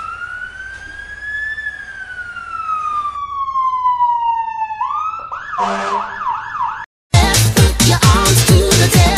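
A siren wail: one slow rise and long fall in pitch, then a fast warbling yelp of about four cycles a second that cuts off abruptly. After a brief gap, about seven seconds in, loud electronic dance music with a steady beat starts.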